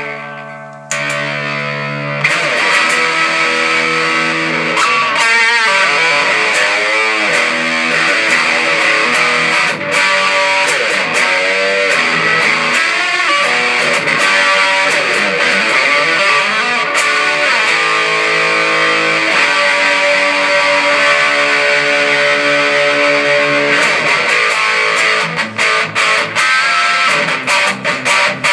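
Electric guitar played through a Marshall VS265 Valvestate combo amplifier: a held chord, then a run of notes with string bends and vibrato, and short choppy strums near the end.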